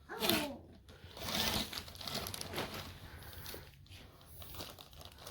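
Irregular crinkling and rustling as the goal's net and frame pieces are handled during assembly.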